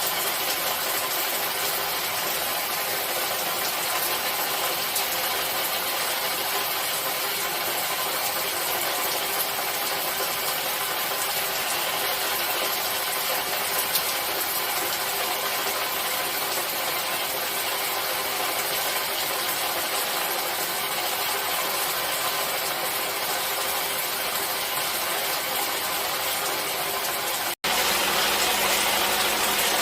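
Steady noise of falling water, even and unbroken. Near the end it cuts out for an instant and resumes slightly louder and fuller, as a new water recording takes over.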